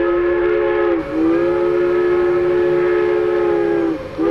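Train whistle blowing a chord of several tones. One long blast, broken briefly about a second in, ends with its pitch sagging. A short blast follows near the end.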